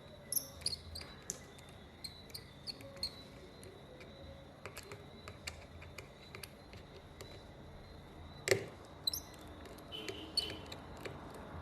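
Faint, scattered small clicks and ticks of a precision screwdriver working the tiny internal screws of an opened iPhone, with one sharper click about eight and a half seconds in.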